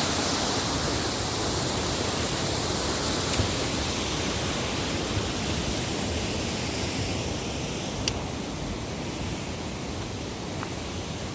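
Steady rush of fast-flowing river or waterfall water, slowly growing quieter, with a few faint clicks.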